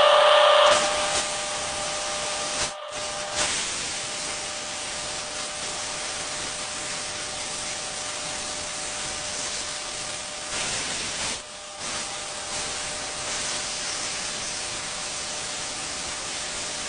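Abrasive sandblasting nozzle spraying against a steel truck frame: a steady, even hiss, broken off briefly twice.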